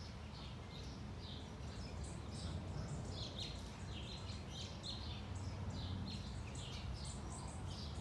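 Small backyard songbirds chirping: many short, overlapping high chirps, getting busier about two seconds in, over a steady low rumble.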